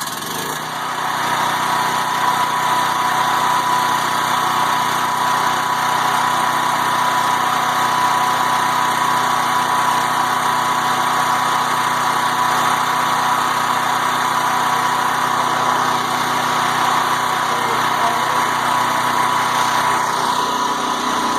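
Westinghouse WGen7500DF portable generator's single-cylinder engine running steadily on propane, with a steady whine in its drone; it grows a little louder about a second in, then holds even.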